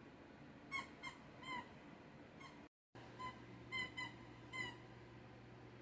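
Rubber squeaky dog toy squeezed by a pit bull, giving short high squeaks: about eight in two bunches, with a brief gap about halfway.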